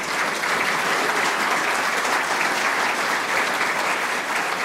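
Congregation applauding, a steady sound of many hands clapping.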